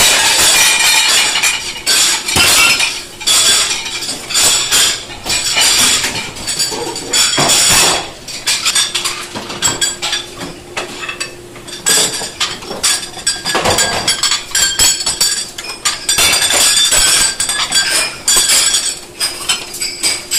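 Plates, glasses and cutlery clattering and clinking in rapid, irregular succession as dishware is handled quickly at a restaurant dish station.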